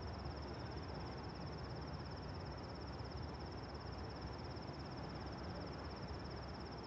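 Faint, steady outdoor background noise with a continuous high, rapidly pulsing insect trill.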